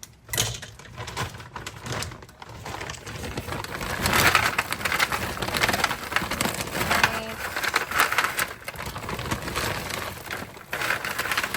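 Frozen broccoli and cauliflower florets tumbling out of a crackling plastic bag onto a sheet pan: a dense rustle and patter of many small clicks, louder from about four seconds in.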